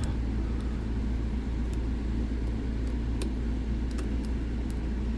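Steady low background rumble with scattered faint, sharp ticks of a thin metal tool working in a dimple lock's keyway, trying to push dropped driver pins back down.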